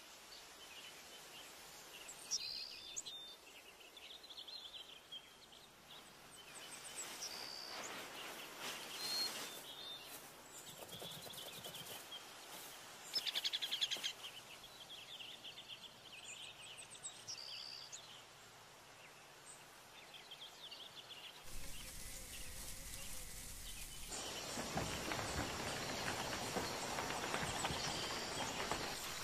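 Faint outdoor nature ambience with birds chirping and trilling in short, scattered calls. About twenty seconds in, the background fills out into a louder, denser bed of wildlife sound.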